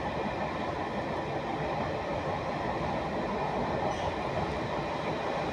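Steady running noise of a passenger train heard from on board, its wheels rumbling along the rails at speed.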